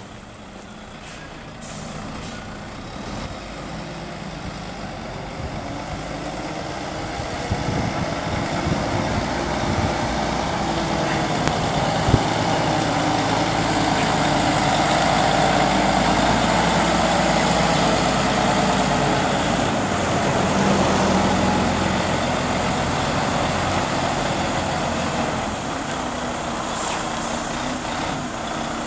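Volvo FM12 380 truck's 12-litre six-cylinder diesel engine idling steadily, growing louder over the first half as the truck comes near.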